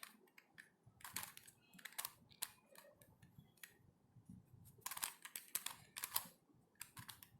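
Plastic pieces of a corner-cut helicopter cube clicking and rattling faintly as its faces are twisted, in two short runs of clicks.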